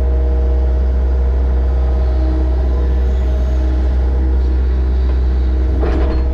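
Mini excavator's diesel engine running steadily at a constant speed, a deep hum with a steady drone above it.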